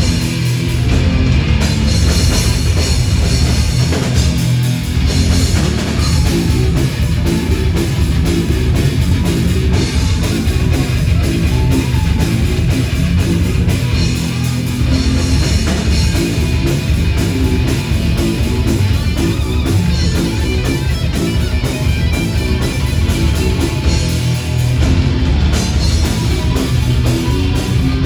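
A rock band playing live and loud: electric guitars and bass guitar through amplifiers over a drum kit, in a heavy, metal-leaning style.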